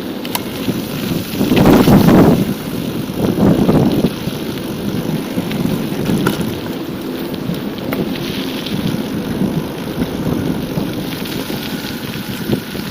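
Wind and riding noise on a moving bicycle's camera microphone: a steady rumbling rush with two stronger gusts about two and three and a half seconds in.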